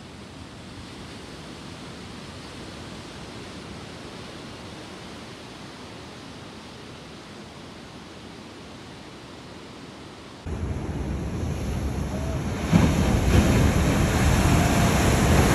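Ocean surf: a steady wash of breaking waves, jumping suddenly much louder about ten seconds in to waves crashing close by, growing louder again a couple of seconds later.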